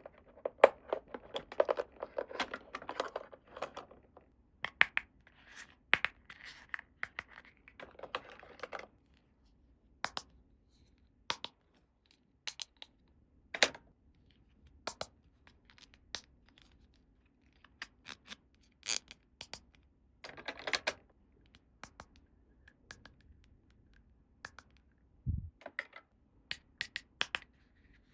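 Toy playset being unpacked by hand: plastic packaging scratching and tearing for the first few seconds, then scattered sharp clicks and taps of small plastic pieces, a short rustle past the middle, and a dull thump near the end.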